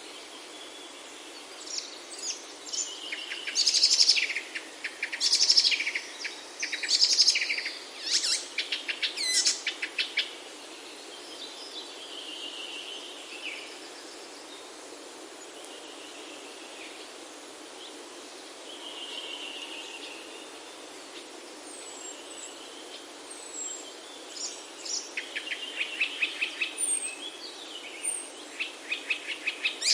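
Songbirds singing: bursts of fast trilled phrases in the first third and again near the end, with softer calls in between, over a steady hiss of outdoor ambience.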